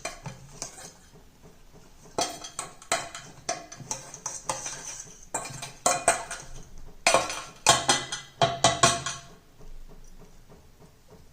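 Spoon clinking and scraping against a bowl while stirring soaked jaggery in water to dissolve it. The clinks come irregularly and are thickest near the end.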